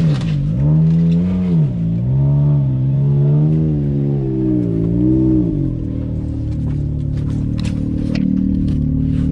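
Side-by-side UTV engine revving up and down in repeated swells as it climbs a rocky trail obstacle, then running at a steadier, lower pitch from about six seconds in. A few sharp clicks come through in the later part.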